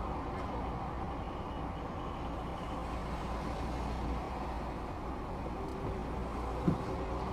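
Steady low rumble of engines in slow road traffic, with cars passing close by and one short knock near the end.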